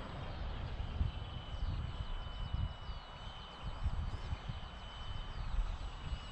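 Wind gusting on the microphone, with the thin steady whine of a small electric RC model autogyro's motor overhead that shifts pitch slightly a couple of times. Faint high bird chirps come and go in the middle.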